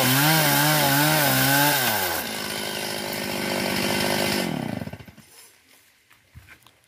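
STIHL MS381 two-stroke chainsaw cutting a fallen sengon log, its engine pitch wavering under load. About two seconds in the throttle is released and the engine drops to a lower, steadier speed, then winds down and stops about five seconds in, leaving faint rustling.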